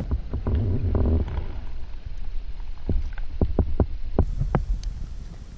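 Small splashes and drips as a hand releases a largemouth bass into shallow pond water, with scattered sharp knocks through the second half. A steady low rumble of wind on the microphone runs underneath.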